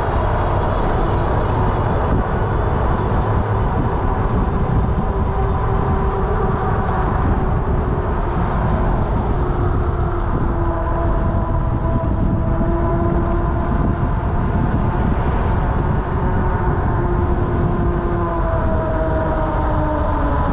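M2S fat-tire electric bike with a 750 W motor being ridden: a steady rush of wind and road noise under a whine that drifts slowly in pitch and falls near the end.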